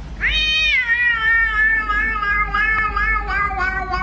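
A cat's long, drawn-out meow. It rises sharply at the start, then wavers on without a break, slowly sinking in pitch.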